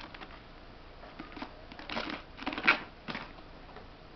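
A red squirrel's claws scrabbling and scratching on a fabric bag as it clambers over it, heard as a few bursts of scratchy rustling, the loudest a little past the middle.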